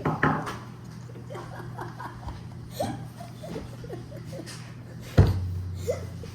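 Stifled giggles and short vocal sounds from people trying not to laugh, with one sharp thump about five seconds in, over a steady low hum.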